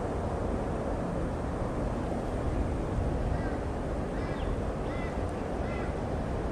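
Steady wind rumbling on the microphone, with a few short bird chirps in the second half.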